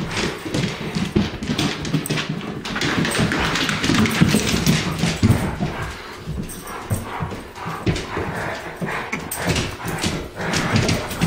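New Guinea Singing Dog moving about restlessly, its claws clicking and scuffling on a hard floor in a quick, irregular patter.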